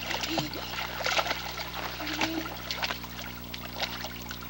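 Water splashing irregularly as a small child thrashes and wades in a shallow inflatable pool.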